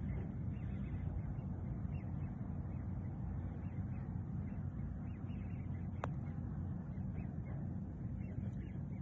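Wind buffeting the phone's microphone, a steady rumble. About six seconds in comes a single short click: a golf club striking the ball on a chip shot.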